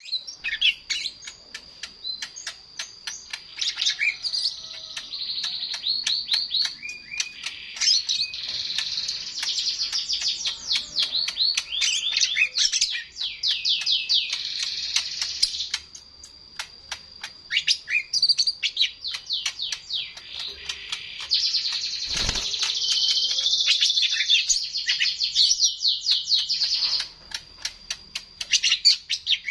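A small songbird, the kind kept in Indonesia as a singing bird and called a jomin, singing long runs of rapid high chirps, fullest in two long stretches in the middle and later part. A steady thin high tone sounds underneath, and there is one dull thump about two-thirds of the way through.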